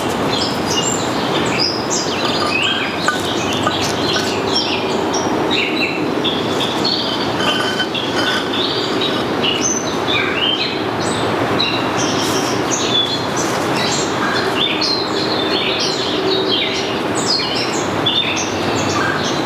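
Birds chirping and whistling in many short, varied notes over a steady rushing background noise.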